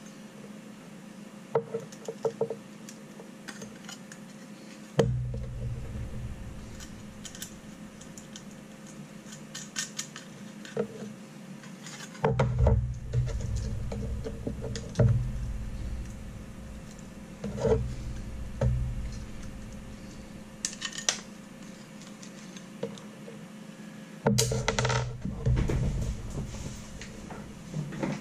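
Small metal parts and a sheet-metal plate being handled and set down on a hard stone desktop: scattered clicks and clinks, with three long spells of low rumbling handling noise.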